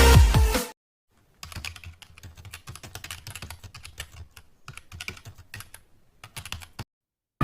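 Packaging being handled and opened: quiet, rapid, irregular crackling and clicking for about five seconds, after intro music cuts off near the start.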